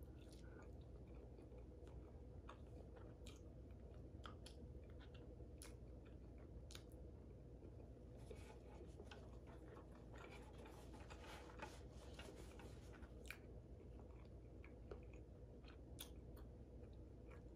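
Faint chewing of a mouthful of lasagna, with scattered small mouth clicks and a denser stretch of chewing in the middle.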